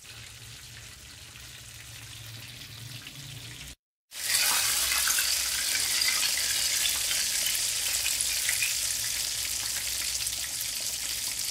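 Besan-coated fish pieces deep-frying in hot oil in a wok, a steady sizzle. It is fainter at first, cuts out briefly about four seconds in, then comes back louder and brighter.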